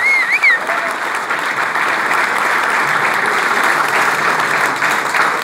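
Audience applauding steadily, with a high wavering tone over the first half-second.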